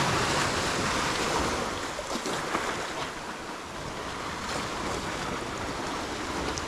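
Ocean surf washing in and breaking on the shore, louder over the first couple of seconds and then easing to a steady wash.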